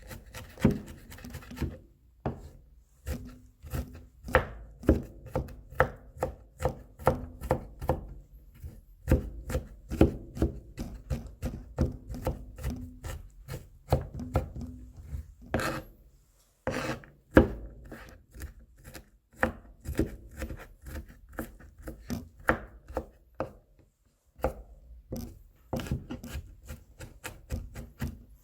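Kitchen knife mincing garlic cloves on a cutting board: rapid, uneven chops, several a second, with short pauses every few seconds.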